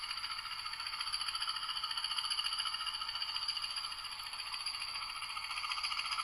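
Model Class 20 locomotive's DCC sound decoder playing a diesel engine sound through the model's small loudspeaker as the loco runs. The sound is a steady, fast, rattly beat that is thin, with no low end.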